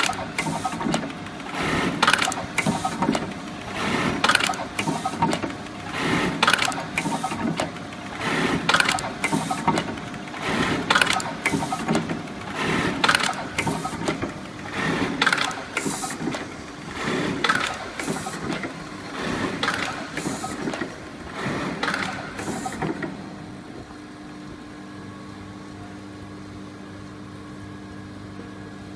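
Industrial automatic button-attaching sewing machine stitching on buttons in repeated cycles, each a quick burst of rapid stitches with sharp clacks, about one cycle every two seconds. About 23 seconds in the sewing stops, leaving a steady low hum.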